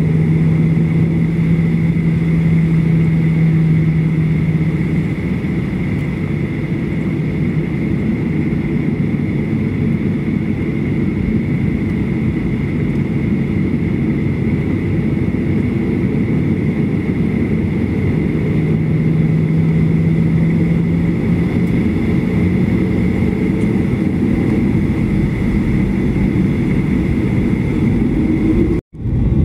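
Jet airliner's engines and cabin noise heard from inside the cabin: a steady rumble with a thin high whine and a low hum that fades in and out. The sound cuts out for a moment near the end.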